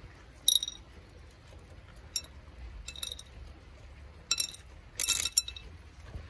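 Dry cat food kibble dropped by hand into a small ceramic bowl: sharp ringing clinks, in about five separate bursts, some single, some a quick rattle of several pieces.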